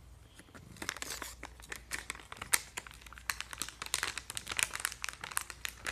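Bag of Temptations jumbo cat treats crinkling as it is handled, in quick irregular crackles that start about a second in.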